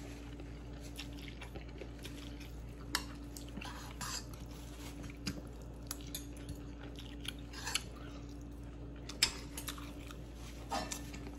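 A person chewing and slurping noodles close to the microphone, with scattered wet mouth sounds and occasional clicks of a metal spoon against a ceramic bowl. A steady faint hum runs underneath.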